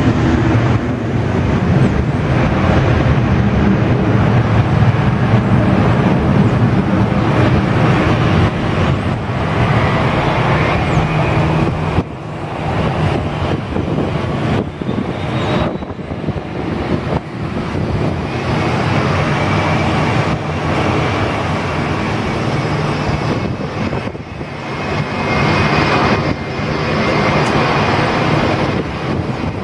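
Airbus A319 jet engines at low taxi power as the airliner rolls past: a steady engine noise with a faint high whine that grows clearer in the second half. The sound breaks off sharply a few times, around 12 and 16 seconds in.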